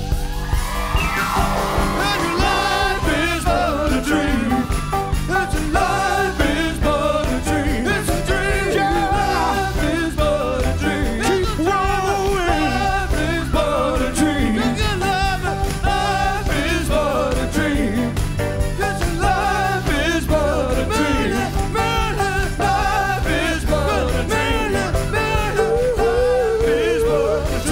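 A live band with sousaphone and electric guitar plays a full groove under male voices singing.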